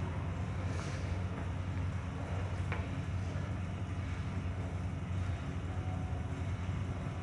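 Steady low mechanical hum over a faint haze of noise, with a faint short tick a little under three seconds in.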